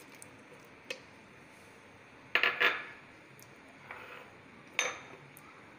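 A spoon clinking against kitchen bowls and a blender jar: a single tap, then two quick loud knocks about two and a half seconds in, then two lighter taps near the end.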